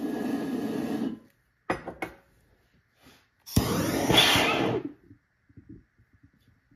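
Jam jar pulsejet with a lid hole that is too small (3/8 inch) flaring up in two short bursts of combustion noise. The first cuts off about a second in, then a few light ticks follow. The second starts suddenly as the torch relights it and dies out after about a second: it almost wants to run but doesn't quite.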